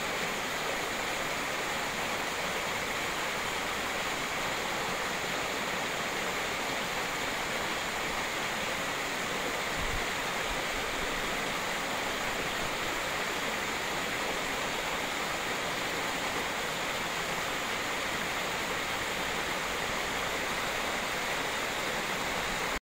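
Small woodland waterfall pouring over rocks into a pool: a steady, even rush of falling and splashing water.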